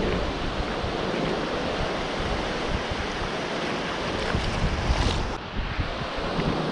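Small surf breaking and washing up the sand close by, with wind buffeting the microphone.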